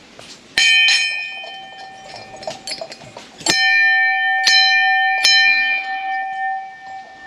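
Hanging brass temple bell rung by hand: struck twice just under a second in, then three more times from about three and a half seconds. Each strike leaves a long ringing tone that fades slowly.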